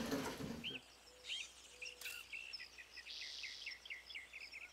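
Small songbirds singing: scattered high chirps, then a quick run of repeated notes through the middle, over a faint steady background.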